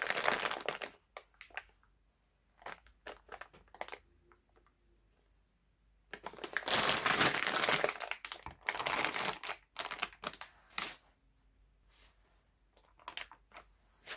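Packaging being handled and crumpled: two long stretches of loud crinkling, about six seconds apart, with scattered small clicks and taps between and after them.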